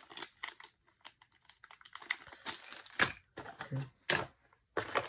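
Light, irregular clicks and crinkling of small plastic packaging being handled, with a sharper click about three seconds in.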